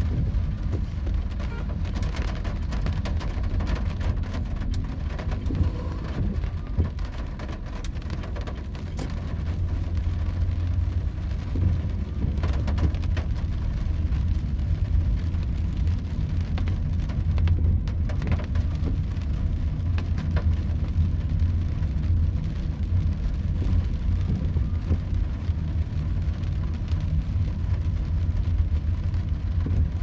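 Heavy rain hitting a car's roof and windshield, heard from inside the cabin as a dense patter of drops over the steady low rumble of the car driving on a wet road.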